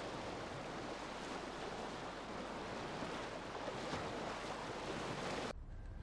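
Steady rushing wind-and-water ambience, an even hiss with no distinct events, cutting off abruptly about five and a half seconds in.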